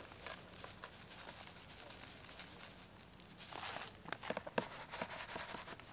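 Faint crinkling of a plastic bag of coarse groundbait and the crumbly feed being tipped out, scattered light crackles that grow busier about three and a half seconds in.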